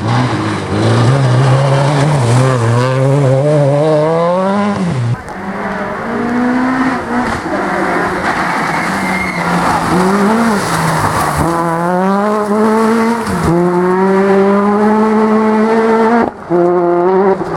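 Rally car engines revving hard, their pitch climbing and dropping back again and again through gear changes, with tyres squealing. The sound changes abruptly about five seconds in and again near the end.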